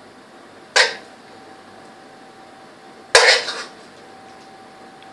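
A spoon knocking sharply against dishware twice, about a second in and again about three seconds in, the second a short clatter of several knocks.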